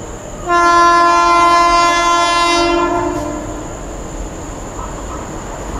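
Horn of an Indian Railways WAP-7 electric locomotive: one long two-tone blast of about three seconds, starting about half a second in, with the lower tone lasting a little longer. The rumble of the approaching train runs underneath.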